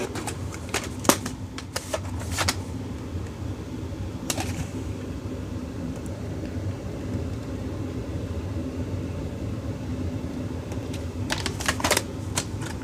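Plastic VHS clamshell case being handled, with a few sharp clicks and taps in the first couple of seconds and one more a little later. Near the end comes another cluster of clicks as the case is snapped open to show the tape.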